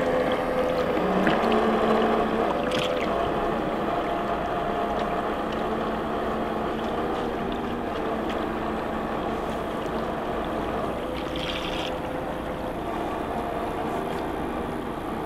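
Electric motors of a remote-controlled Waverunner bait boat running out on the water: a steady whine that shifts in pitch now and then and grows fainter over the first few seconds as the boat moves away.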